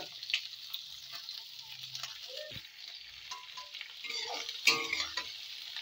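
Chopped onions sizzling in hot mustard oil in a karai as they are stirred, with scraping and clattering against the pan, loudest a little over halfway through.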